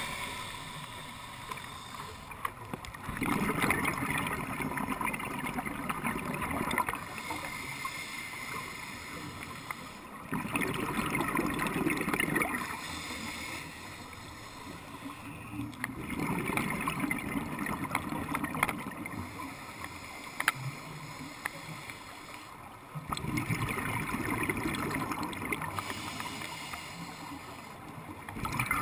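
Scuba diver breathing through a regulator, heard underwater through the camera housing. There are four long exhales about every six to seven seconds, each a rush of bubbles, with quieter stretches between.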